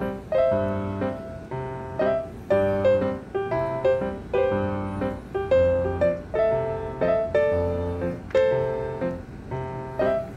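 Background piano music: a gentle melody of struck notes in a steady rhythm.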